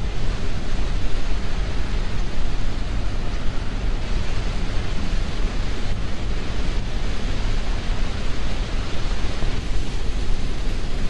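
Steady rushing noise of wind buffeting the microphone, loudest in the low end, with no distinct events.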